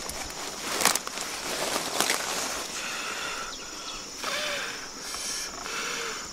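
Fingers picking at a grilled fish laid on banana leaves: sharp leaf crackles about a second and two seconds in, then softer rustling and mouth sounds of eating. A steady high-pitched insect buzz runs underneath.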